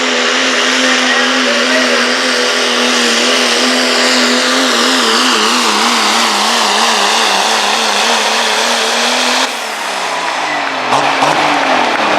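Diesel pickup truck engine at full throttle pulling the sled. From about four seconds in its pitch wavers rapidly up and down. About nine and a half seconds in the throttle is let off and the engine winds down.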